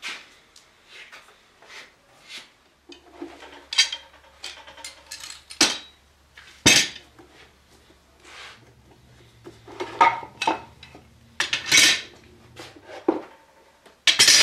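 Steel bar clamps with wooden screw handles being unscrewed, lifted off a glued tabletop and set down on a workbench: an irregular string of metal clanks and clinks, loudest about seven and twelve seconds in.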